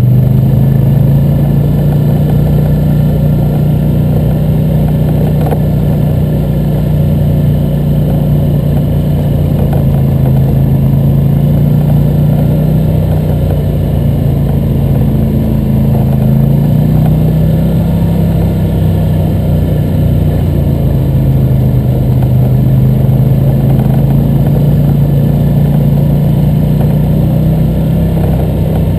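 ATV engine running steadily while riding a dirt trail at low speed, its pitch rising and falling a little with the throttle.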